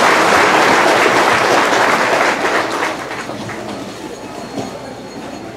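A congregation applauding, the clapping dying away from about three seconds in.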